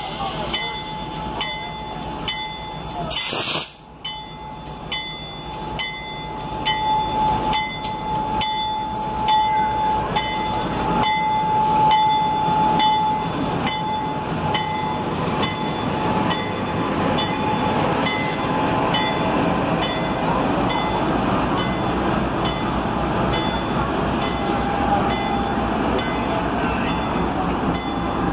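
Ex-Burlington Northern GE U30C diesel-electric locomotive, with its V16 FDL diesel, running as it moves off light, getting louder from about six seconds in. A short hiss comes about three seconds in, and a high steady squeal runs for several seconds near the middle.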